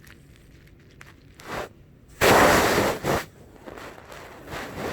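A 21-year-old Siamese cat snoring in its sleep: noisy breaths, a short one about a second and a half in, the loudest about two seconds in lasting about a second, and another building steadily near the end.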